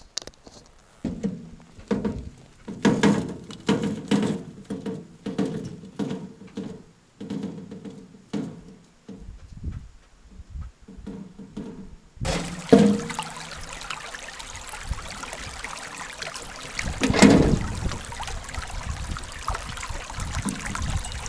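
Irregular knocks and rustles, then, from about twelve seconds in, a steady rush of running water with one louder surge near the end.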